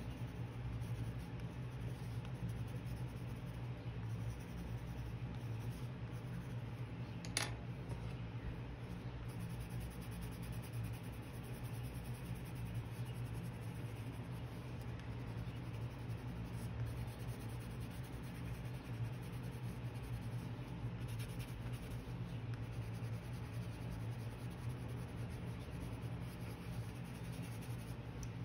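Coloured pencil scratching steadily on watercolour paper as it colours, over a low steady hum, with a single click about seven seconds in.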